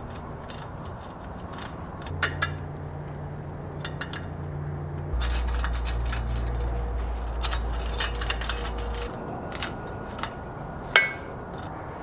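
Small metallic clicks and clinks as a hex key turns bolts and a stainless wire bottle cage is fitted against a bicycle's seat tube, with a quick run of ticks in the middle and one sharper clink about 11 seconds in.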